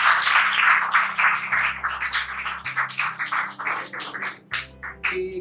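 Small audience clapping, dense at first and thinning out over about four seconds, over soft background music holding low sustained notes.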